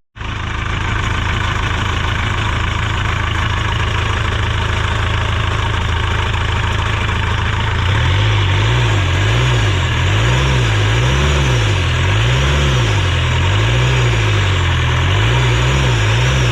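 Mercedes Sprinter 412 diesel engine running steadily at idle, loud and close. About halfway through, a low, regular pulsing throb comes in beneath the running.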